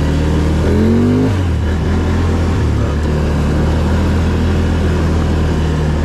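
Can-Am Outlander ATV engine running under way, the revs rising about a second in and then holding steady.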